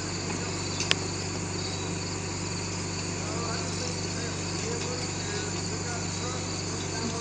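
Crickets trilling steadily over the low, even hum of an idling engine, with one sharp click about a second in.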